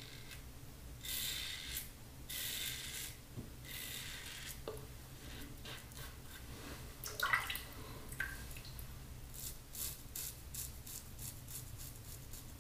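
Double-edge safety razor scraping through lathered stubble, a faint rasp with each short stroke. A few separate strokes come early, and a quick run of short strokes comes later. A brief louder sound comes about seven seconds in.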